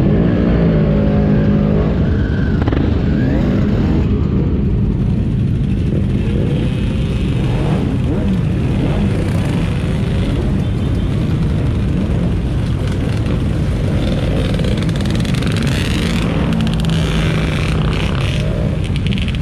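Quad bike (ATV) engine running under way off-road, its pitch rising and falling with the throttle over a heavy, steady rumble.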